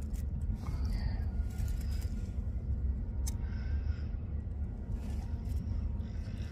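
Wind rumbling on the microphone, with a few faint crinkles and clicks from a cigarette rolling paper being handled.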